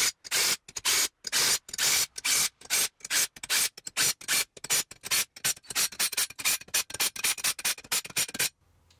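Cordless impact tool hammering in many short trigger bursts as it runs down and snugs the ring gear bolts on a Chrysler 9.25 differential carrier. The bursts come quicker and shorter in the second half and stop shortly before the end.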